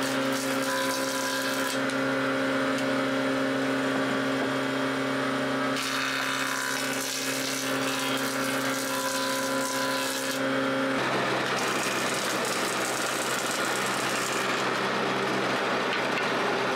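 Stationary electric woodworking machines planing scrap boards: a steady motor hum with cutting noise that changes as each board is pushed through. About 11 s in the sound shifts to a noisier machine with less hum, a thickness planer.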